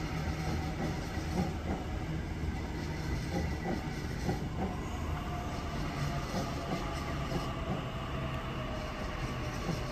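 Double-deck electric suburban train running slowly along the tracks: a steady low rumble with a few thin, faint whining tones over it.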